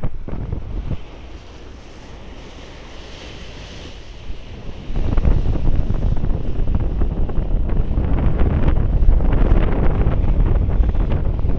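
Seawater rushing and splashing as a ship's bow cuts through it at speed, with heavy wind buffeting the microphone. Both get much louder about five seconds in.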